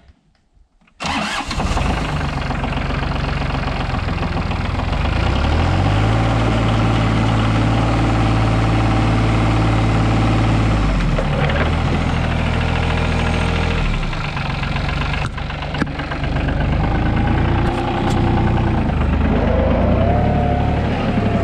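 Compact tractor engine starting up about a second in, then running steadily, its engine speed going up and down several times. Near the end a wavering whine rises and falls over the engine.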